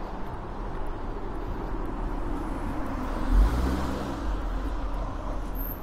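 City street traffic noise: a steady rumble of cars on the road, with one car passing close by about halfway through.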